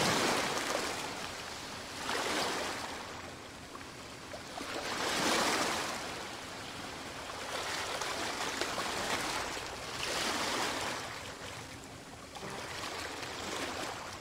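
Washes of noise that swell and fade every two to three seconds, like waves breaking and drawing back.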